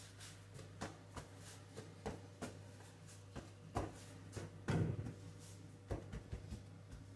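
Scattered soft taps and knocks of hands shaping and rolling dough on a kitchen worktop, the loudest cluster just under five seconds in, over a steady low hum.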